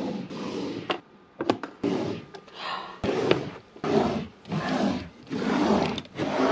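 Drawers of a white drawer unit full of makeup being slid open and shut: a run of sliding swishes about once a second, with sharp clicks and knocks in between.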